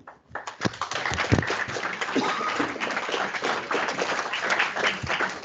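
Audience applauding: many hands clapping together, building up within the first second and starting to thin out near the end.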